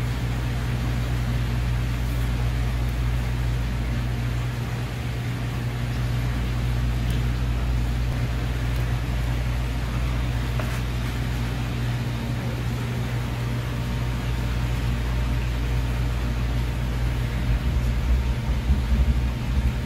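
Steady low mechanical hum with a hiss, as of room machinery such as ventilation or cooling equipment, with a few faint clicks from knife work on a plastic cutting board. Near the end the low hum turns uneven and a little louder.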